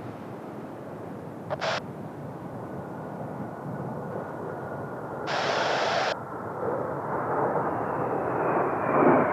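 Distant jet aircraft (Blue Impulse Kawasaki T-4 trainers) with a steady turbofan rush, growing louder toward the end as a high whine slides down in pitch. Two short bursts of hiss stand out, a brief one about a second and a half in and a louder one lasting nearly a second a little past the middle.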